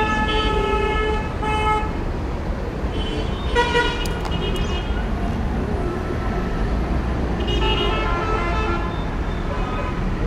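Horns sounding in three spells of blasts, at the start, about three and a half seconds in and about seven and a half seconds in, over a steady low rumble.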